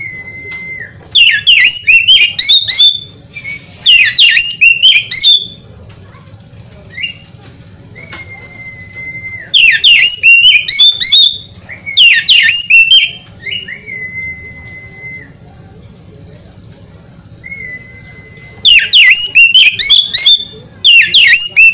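Oriental magpie-robin singing. Bursts of rapid, varied high notes, each a second or two long, alternate with single level whistles that drop at the end.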